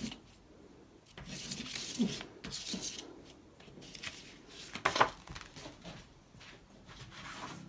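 Pastel stick scraping and scribbling across thick painted paper, then the paper sheet rustling and sliding as it is handled and lifted off a wooden tabletop. There is one sharp knock about five seconds in.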